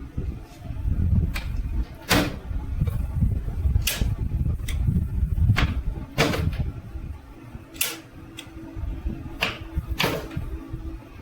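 Hand tools and metal motorcycle parts knocking and clinking at irregular intervals, roughly once a second, over a low rumble of handling.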